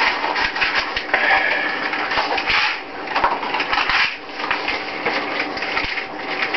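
Crinkling and tearing of plastic wrap as a pill bottle is unsealed by hand, with many small clicks and crackles throughout.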